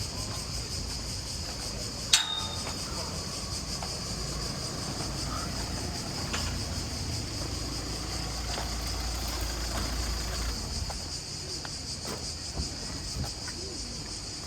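Steady high-pitched insect chorus, like summer cicadas, over a low rumble that stops about ten seconds in. A single sharp metallic clink about two seconds in is the loudest sound.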